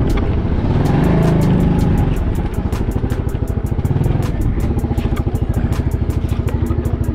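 Small motor scooter's engine running at low speed with a fast, even pulse.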